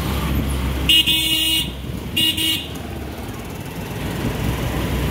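A vehicle horn honks twice, a longer blast then a short one, over the steady hum of a two-wheeler's engine and street traffic.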